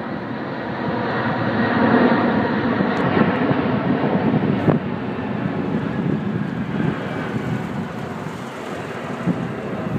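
Airbus A380's four jet engines running as the airliner passes overhead: a broad, steady roar that swells to its loudest about two seconds in, then fades slowly.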